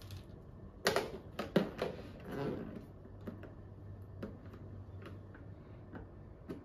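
Clicks and light rattles of the ultrasound handpiece's plug and cable being handled and pushed into the facial machine's socket: a cluster of louder clicks about a second in, then scattered soft ticks.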